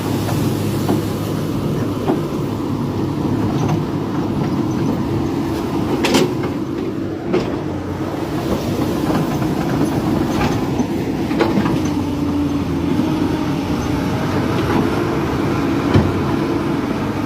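Excavator's diesel engine running steadily, with scattered sharp metal clanks from the machine every few seconds.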